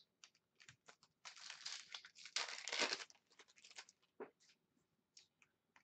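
Crinkling and rustling of foil trading-card pack wrappers and cards being handled, for about two seconds in the middle, with a few light clicks before and after.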